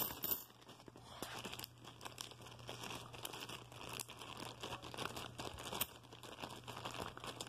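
Clear plastic zip-top bag crinkling as hands handle it and press its green seal shut, a quiet, continuous run of small crackles.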